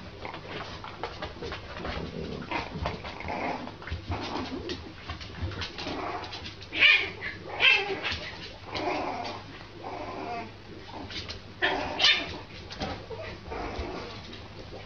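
French bulldog puppy barking in play, a run of short high yaps and whines, loudest a little before halfway and again about four-fifths through.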